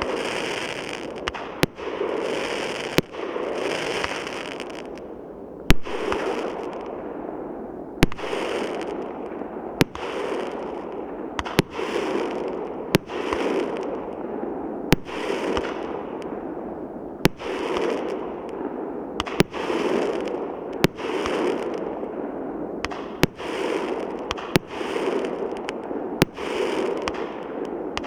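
Multi-calibre 216-shot fireworks cake (Feeria FEE7285) firing in sequence: a sharp bang about every one to two seconds, each followed by a second or two of crackling that fades.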